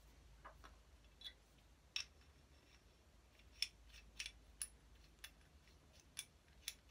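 Light clicks and taps of small metal parts as a Stanley No. 8 plane's cast-iron frog and its adjuster hardware are handled and fitted together by hand. The clicks are scattered, about one a second, over a quiet background.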